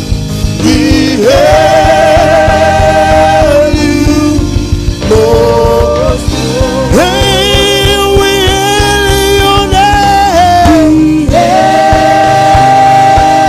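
Gospel worship music: a singer holding long, drawn-out notes, some with vibrato, over a band with a steady beat.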